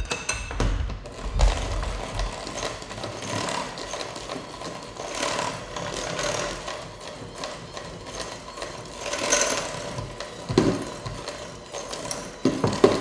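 Electric hand mixer running steadily, its beaters working through a stiff cookie dough in a glass bowl, with a few sharp knocks along the way.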